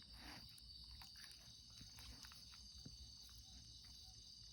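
Faint, steady high-pitched trilling of crickets, with a few faint ticks.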